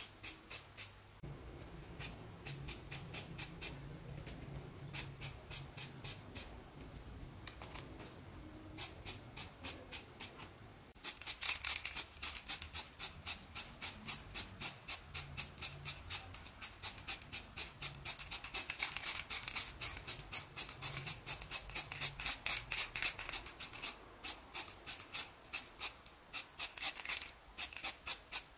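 Spray paint hissing out in rapid short spurts, about four or five a second, in short runs at first and then almost without a break from about a third of the way in.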